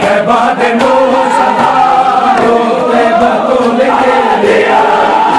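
A group of men chanting a Shia noha lament together in unison, many voices singing one melodic line.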